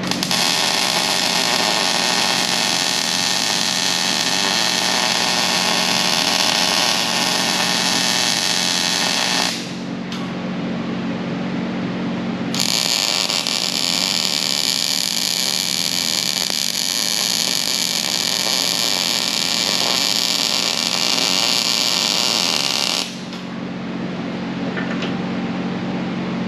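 Arc welding on thick steel plate: the arc crackles and hisses steadily in two long runs of about ten seconds each, with a short pause between. A steady low hum continues underneath.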